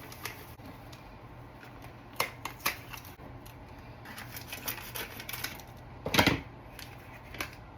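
Instant pudding mix packets being opened and emptied into a mixing bowl: crinkly paper and plastic rustling with scattered light clicks, and a louder rustle about six seconds in.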